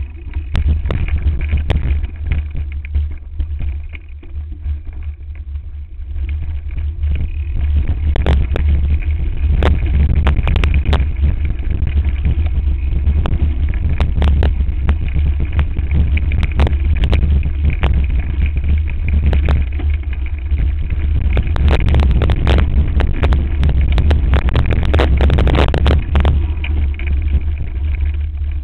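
Mountain bike descending rocky singletrack, heard from a bike-mounted camera: a heavy steady wind rumble on the microphone with the bike clattering and knocking over rocks. The clatter is sparse for the first few seconds, then comes thick and fast, busiest in the second half.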